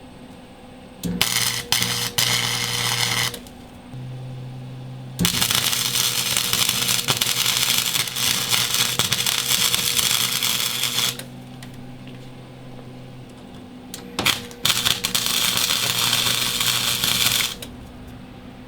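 Arc welder crackling in three bursts, a couple of seconds, about six seconds and about three seconds long, as 16-gauge steel patch plates are welded into the floor of a school bus. A low electrical hum runs under the bursts and between them.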